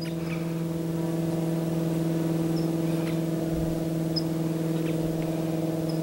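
A steady hum of several held low tones, swelling slightly over the first two seconds. Over it, a few faint, very short, high bird chips.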